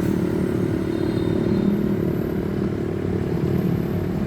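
Vehicle engine running steadily, a continuous low rumble.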